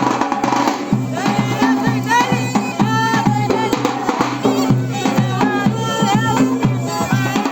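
Arabic folk wedding music: a bending, ornamented vocal or melody line over a steady drum beat.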